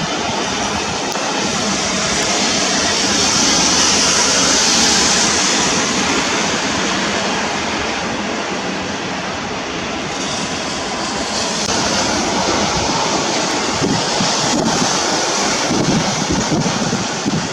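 Heavy downpour in a windstorm: a loud, steady hiss of rain that swells a few seconds in. Near the end, gusts of wind buffet the microphone.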